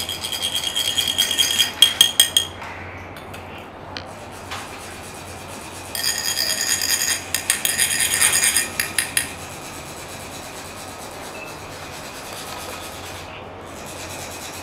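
Metal chak-pur sand funnels rasped against each other in quick strokes, a ringing metallic scrape, in two bouts of a few seconds each. This rasping sets the funnel vibrating so that the coloured sand trickles out in a fine line.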